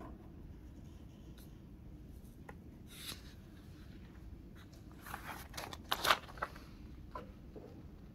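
Quiet room with a low steady hum, broken by short rustles and scrapes: one about three seconds in and a cluster between five and six and a half seconds in, the loudest near six seconds.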